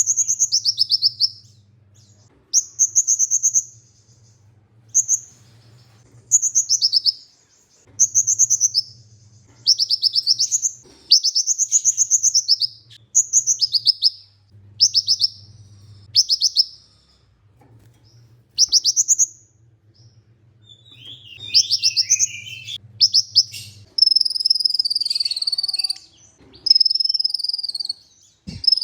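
Van Hasselt's sunbird (kolibri ninja) singing: short, fast, high trilled phrases repeated every second or two, then a longer unbroken high warbling run near the end.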